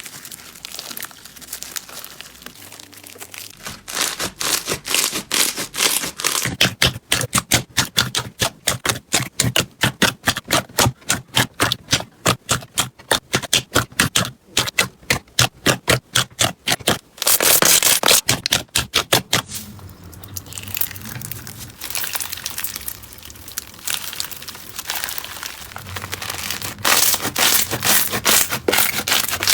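Slime being pressed and squeezed, making crackling pops: a quick, even run of sharp clicks through the middle, then a dense burst of crackling and a softer, scraping crackle that grows louder near the end.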